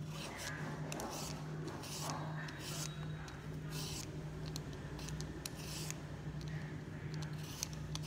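Hand-held julienne shredder scraped repeatedly down a cucumber, a short rasping shred roughly once or twice a second, over a low steady hum.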